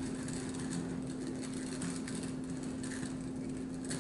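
A steady low machine hum holding one constant pitch, with a faint light scraping over it.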